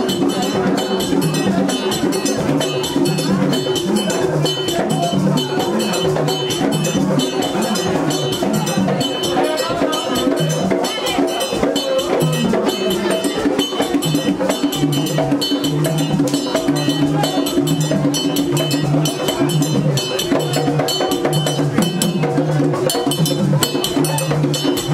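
Live Haitian Vodou ceremony music for dancing: dense, fast drumming with a metal bell beating time, and voices singing held, stepping notes over it without a break.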